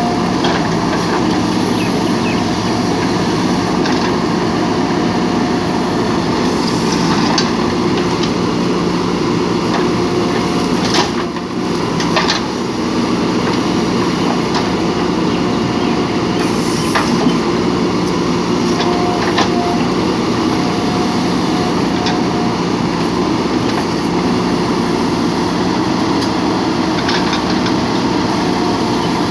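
JCB backhoe loader's diesel engine running steadily under work, with a few brief knocks from the machine.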